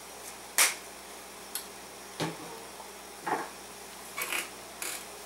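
A few scattered short clicks, knocks and a brief rattle, the sharpest about half a second in, from seasoning containers and kitchen utensils being handled while spices go into the pan.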